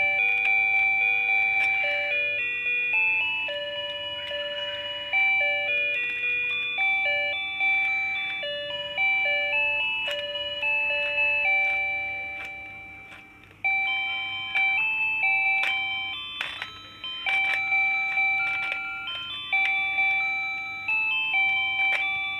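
A simple electronic melody of chiming beep tones, one note at a time, each struck and fading, like a toy's music chip. The tune stops briefly about halfway through and then carries on, with a few faint clicks.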